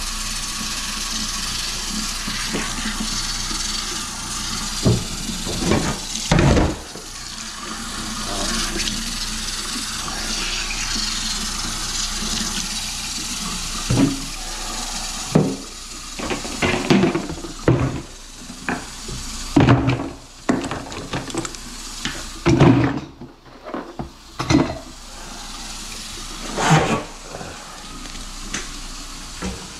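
Kitchen faucet running water into a stainless steel sink, a steady rush of water. From about halfway through it is broken by irregular knocks and clunks as the drain-cleaning machine and its cable are handled.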